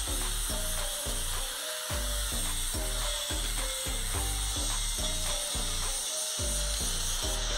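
Angle grinder running steadily, its disc grinding down a weld on stainless steel pipe with a steady high-pitched hiss. Background music with a beat plays underneath.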